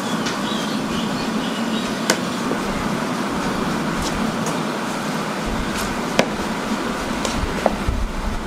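Steady machinery noise with a low hum, broken by a few sharp clicks or knocks about two, four, six and seven and a half seconds in.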